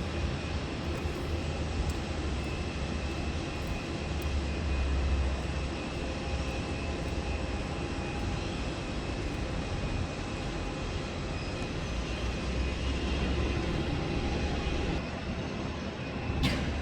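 Airliner engines running steadily with a deep low rumble, heard during a landing. A single sharp click near the end.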